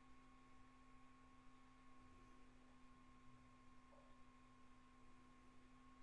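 Near silence: room tone with a faint steady hum.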